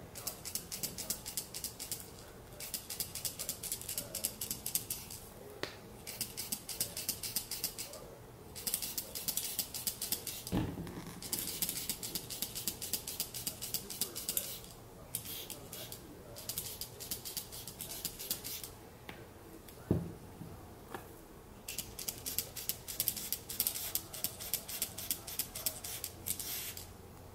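Dr. Fill-in hair-fibre pump applicator squeezed over and over, puffing fibres in quick runs of crisp clicks and puffs with short pauses between. Twice there is a sharper knock.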